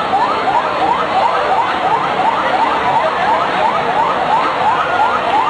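Vehicle siren sounding in a fast yelp: quick rising sweeps, each snapping back down, about two and a half a second.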